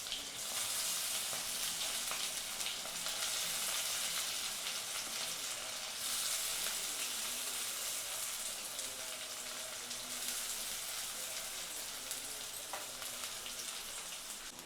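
Chopped onions sizzling steadily in hot oil in a kadai.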